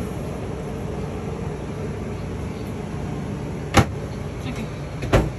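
The travel trailer's air conditioner running steadily on low fan, with two sharp knocks about a second and a half apart near the end.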